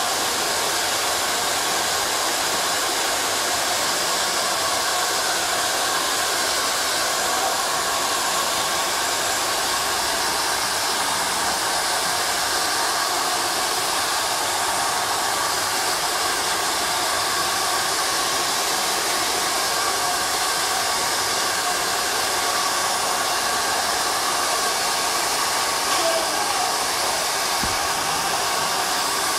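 Handheld hair dryer running continuously as it blows on wet hair: a steady rush of air with a faint steady whine.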